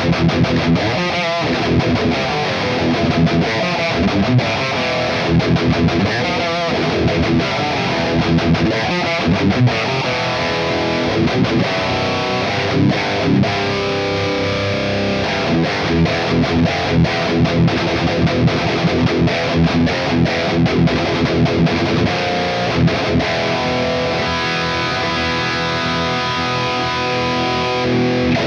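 High-gain distorted electric guitar playing metal riffs through a Mooer Brown Sound 3 preamp pedal, with a power amp sim and a cabinet impulse response. Quick chugging notes alternate with held chords, which ring longer near the end.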